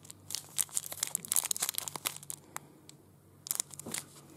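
Small plastic packaging bag crinkling and rustling as it is handled and opened, in irregular crackles. There is a short lull about three seconds in before a last burst.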